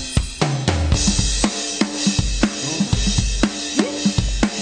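A full drum kit being played in a steady beat: bass drum, snare and cymbals, opening with a quick fill stepping down the toms about half a second in.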